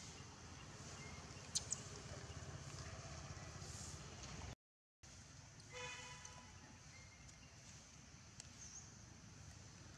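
Faint outdoor ambience with a steady low rumble, two sharp clicks early, and a brief cut to silence just before the middle. About six seconds in, a short steady-pitched beep of a distant vehicle horn; a faint bird chirp near the end.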